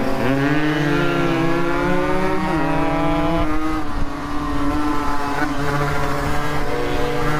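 Motorcycle engine running under way, its pitch rising and falling as the throttle changes, with a brief dip about two and a half seconds in.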